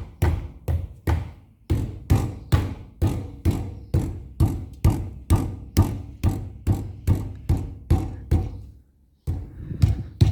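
A car's rear wheel is struck repeatedly by hand, about three knocks a second with a short break near the end. Each blow sets off a rattle at the brake disc dust shield, where a small stone is trapped between the disc and the shield.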